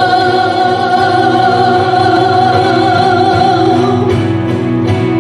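Church worship music: singers and a band hold one long final note of a hymn line. About four seconds in, rhythmic guitar strumming takes over, around two strums a second, leading into the next section.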